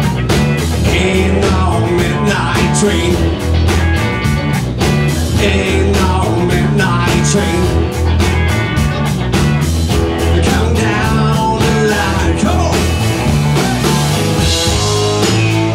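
Live blues-rock band playing electric guitars over bass guitar and a drum kit, with a steady driving beat and bending guitar notes.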